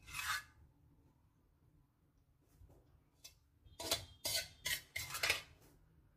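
A metal spoon clinking and scraping against dishes: one short scrape at the start, then a quick run of clinks about two-thirds of the way through.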